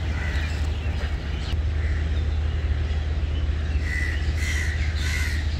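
Outdoor ambience: a steady low rumble with birds calling, a few short calls bunched in the second half.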